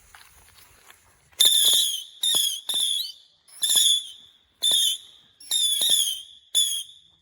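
Saturn missile battery firing its small whistling rockets one after another. About eight short shrill whistles go off in quick succession from about a second and a half in, each starting with a sharp pop and falling slightly in pitch.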